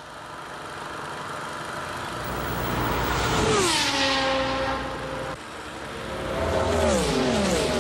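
Group C sports-prototype race cars at full speed on a straight. One car's engine grows louder as it approaches, then drops sharply in pitch as it passes about three and a half seconds in. Near the end a pack of several cars passes one after another, each engine note falling as it goes by.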